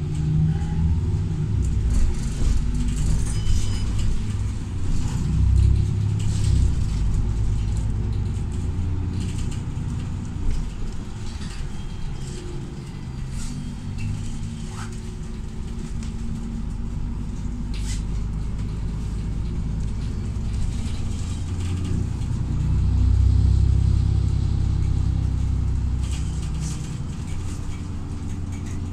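City bus driving, heard from inside the passenger cabin: a steady low engine and road rumble that swells in the first few seconds and again about 23 seconds in, with occasional light clicks and rattles.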